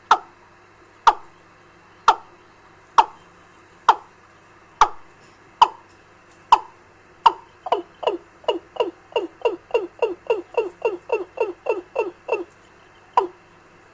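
Recorded chicken call played through a bird-trapping amplifier's loudspeaker: short notes, each falling in pitch, about one a second, that speed up about halfway in to a quick run of three or four a second, then slow back to single notes near the end.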